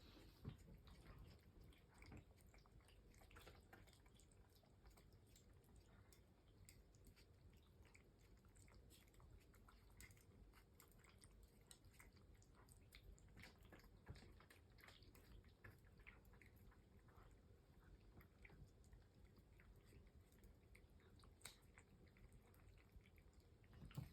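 Cats eating from their bowls: faint chewing, a scatter of small clicks with a few sharper taps.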